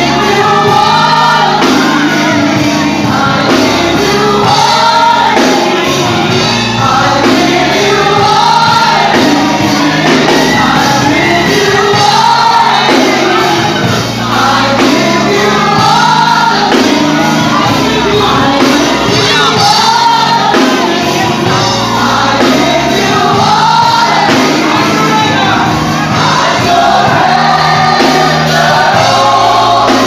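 Gospel praise team singing together into microphones over amplified instrumental backing, loud and continuous.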